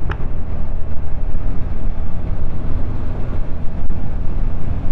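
A motorcycle on the move: wind rumbling against the microphone, with engine and road noise underneath, its loudness wavering.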